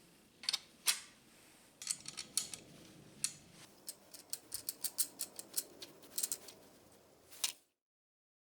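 A quick, irregular run of sharp small clicks and light taps, about twenty in all, from hand work at the bench. The run cuts off abruptly near the end.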